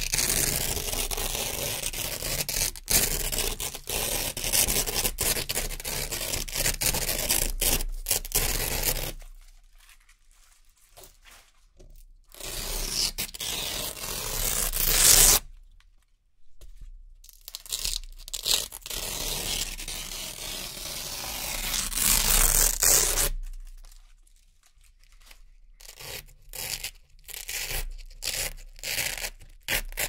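Hook-and-loop (Velcro) fabric pieces being peeled off a Velcro board, ripping in several long pulls separated by short quiet gaps. Near the end comes a run of short, quick rips.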